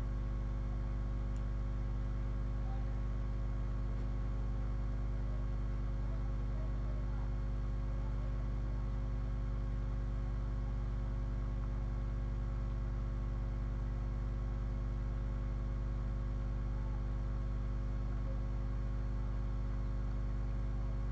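Steady electrical mains hum: a low, unchanging buzz with a stack of overtones.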